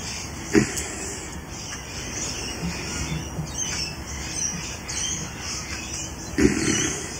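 Two knocks over steady background noise: a short one about half a second in and a louder, slightly longer one near the end. Faint bird chirps come and go in the background.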